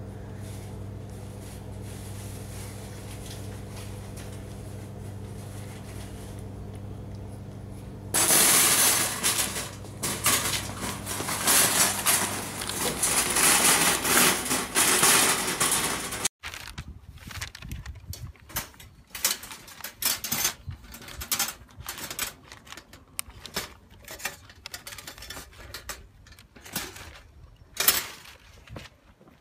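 A steady low hum, then, about eight seconds in, loud metallic rattling and clattering from a wire-mesh box trap with a trapped cat inside. This lasts about eight seconds and stops abruptly. Sparser irregular clicks and knocks follow.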